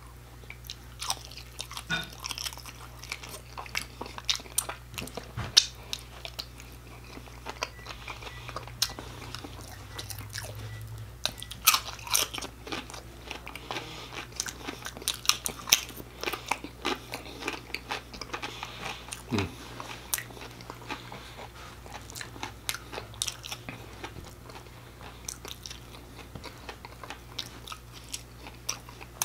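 A person chewing crispy fried firecracker shrimp and tortilla chips: irregular crunches and wet mouth clicks, with a few sharper crunches standing out.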